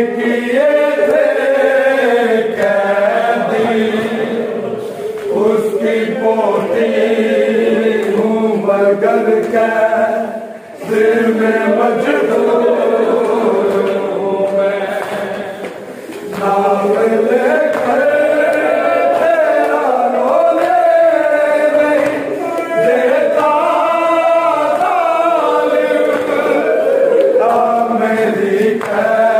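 A group of voices chanting a noha, a Shia mourning lament, unaccompanied, in long drawn-out sung phrases with short breaks about ten and sixteen seconds in.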